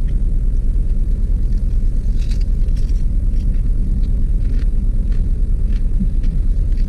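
Steady low rumble of a car idling, heard inside its closed cabin, with a few faint crunches of fried chicken being chewed.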